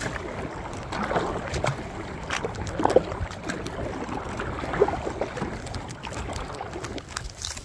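Choppy water splashing and slapping against a sit-on-top kayak as it is paddled, with a few sharp knocks.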